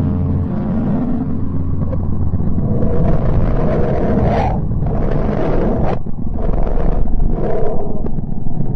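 Space-probe recording of a planet, played as sound: a steady low rumbling drone. From about three seconds in, four rushing, hissing surges swell over it, and each one cuts off abruptly.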